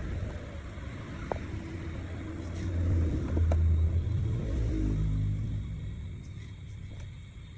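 Low engine rumble of a motor vehicle passing by, swelling to its loudest about three to five seconds in and then fading.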